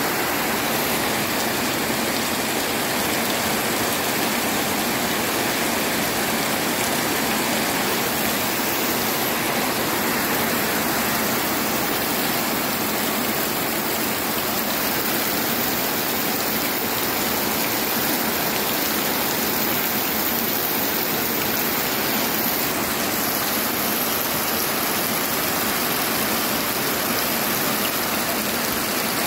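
Heavy rain pouring steadily onto a muddy path, puddles and plants: a dense, even hiss that does not let up.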